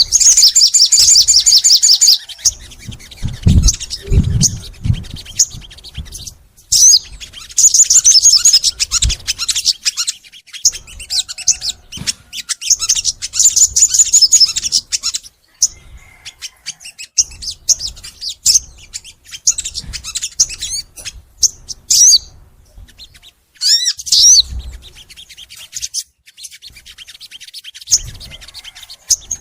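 A sogon songbird singing energetically: fast, high trilled phrases in bursts of about two seconds, with short sharp notes between them. A few low thumps sound about four seconds in.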